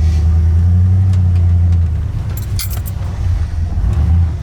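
1985 Ford F-150's carbureted engine idling cold, a steady low rumble that sags briefly twice, an uneven idle the owner calls goofy and blames on the eBay carburetor and a choke that does not bring the idle up. A brief metallic jingle sounds a little past halfway.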